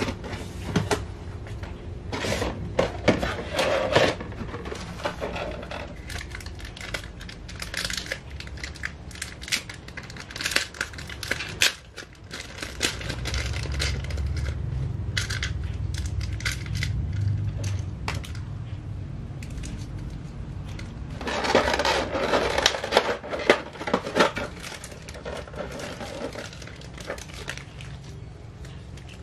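Clear plastic bags and a clear plastic blister tray crinkling and rustling as a Nendoroid figure's parts are handled and unwrapped, with small clicks and taps of plastic pieces. The crinkling comes in bursts, loudest a few seconds in and again about three quarters of the way through.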